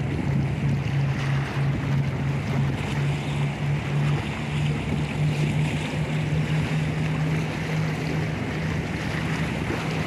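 A motor's steady low drone, its pitch creeping slightly higher, over wind noise on the microphone and the wash of moving water.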